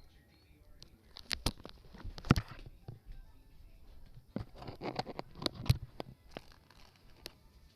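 Handling noise close to the microphone: scattered taps and knocks with rustling, the sharpest knocks about two seconds in and again near six seconds.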